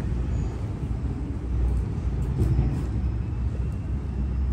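Steady low rumble of a car.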